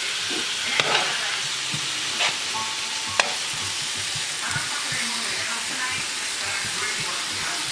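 Steak and onions sizzling steadily in a frying pan, with a utensil clicking and scraping against the pan a few times, the sharpest knock about three seconds in.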